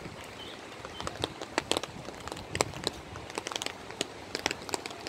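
Rain: irregular sharp ticks of drops landing close by, over a steady hiss.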